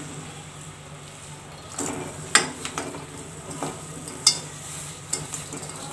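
Crumbled jaggery being pushed by hand from a steel plate into a steel kadhai of warm ghee, with a few sharp metal-on-metal clinks of plate against pan, the loudest about two and a half and four seconds in, over a steady low hum.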